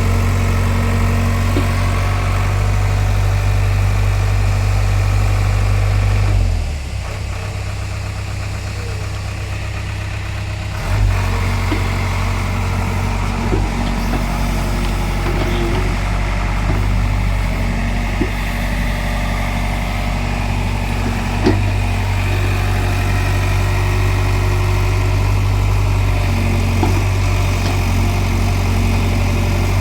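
Excavator's diesel engine running steadily, easing off for a few seconds about a quarter of the way through and coming back up with a sharp knock; a few light knocks follow.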